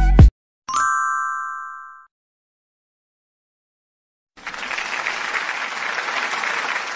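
Background music cuts off, then a single bright chime rings and fades over about a second. After a short silence, an applause sound effect plays for about three seconds.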